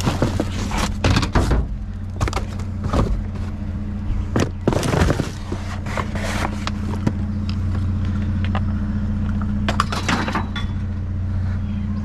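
Junk being rummaged in a metal dumpster: repeated clanks, knocks and rattles as cords and scrap are shifted, busiest in the first half and again near the end. A steady low hum runs underneath.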